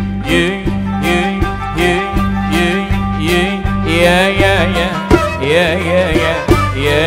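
Live Arabic tarab music: a man singing ornamented, melismatic phrases into a microphone over instrumental accompaniment with a steady bass line.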